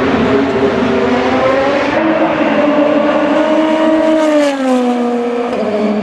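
A DTM race car's two-litre turbocharged four-cylinder engine running hard. Its note rises steadily in pitch as it accelerates, then drops smoothly about four seconds in.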